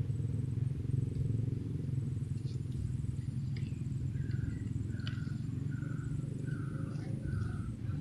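Motorcycle running along with a rough, steady low rumble, with wind on the microphone. From about halfway, a short chirp repeats about every two-thirds of a second over it.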